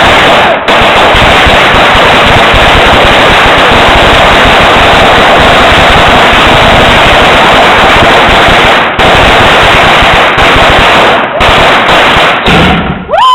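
A long string of firecrackers going off in rapid, unbroken crackling, very loud throughout, with a few short breaks near the end.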